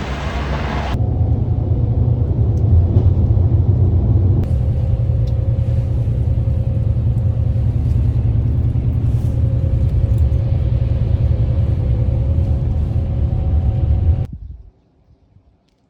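Steady low rumble of a moving vehicle heard from inside, with a faint steady hum over it. It starts after a second of loud hiss and cuts off abruptly near the end.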